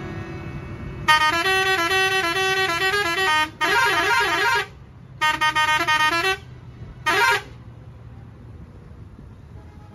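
Multi-tone musical vehicle horn of the kind fitted to Pakistani buses, sounding four times. The first and longest blast, about a second in, steps through a short tune, and the last is brief. A low steady engine rumble runs underneath.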